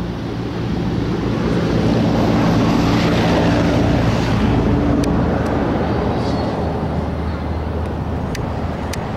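A road vehicle passing close by, its engine hum and tyre noise swelling to a peak about three to four seconds in, then easing off. A few sharp clicks come near the end.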